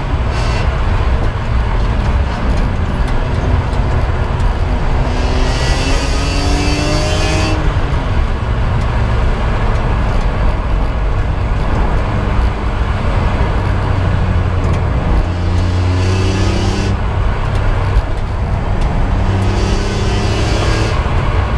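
BMW E46 M3's 3.2-litre straight-six heard from inside the cabin, its engine note rising several times as the car accelerates, over steady road and tyre noise.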